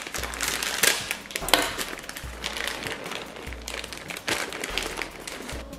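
Plastic food bag crinkling and rustling in irregular bursts as it is cut open and handled.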